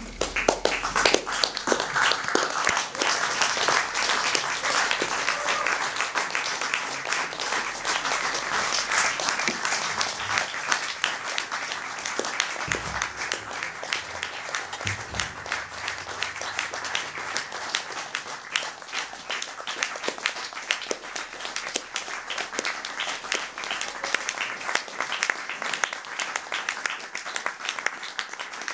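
Audience applauding, starting suddenly and loudest in the first few seconds, then carrying on steadily.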